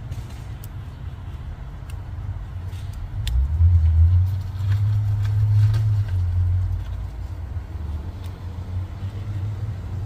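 A low rumble, louder from about three to seven seconds in, with a few faint clicks of a plastic ignition coil connector and its terminal pins being handled.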